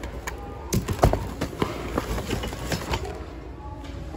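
Hands rummaging through a bin of mixed secondhand goods: a quick, irregular run of clacks, knocks and rustles as plastic, boxes and other items are shifted, over a low steady store hum. The knocking is busiest in the first three seconds and thins out near the end.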